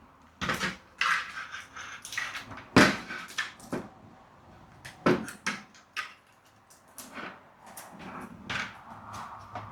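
Irregular knocks, clatters and rustling of things being handled, with the loudest knock about three seconds in and another about five seconds in.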